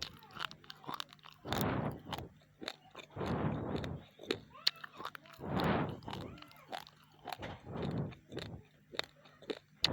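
Person chewing raw, uncooked rice grains close to the microphone: many sharp crunches as the hard grains crack between the teeth, with louder grinding spells every couple of seconds.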